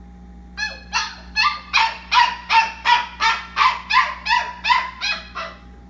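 A small dog yipping over and over, about three high-pitched yips a second, the last few weaker.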